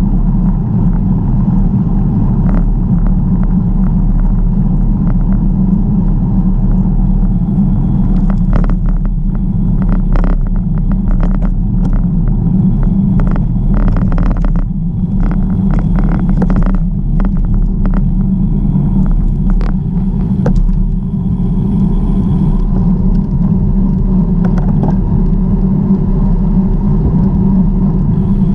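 Steady low noise of riding on a bicycle: wind and tyre noise on the camera. Through the middle it is broken by a run of sharp clicks and rattles.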